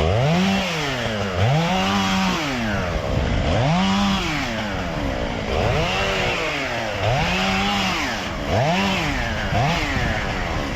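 Chainsaw engine revved up to full speed and let back down to idle about seven times, roughly every second and a half.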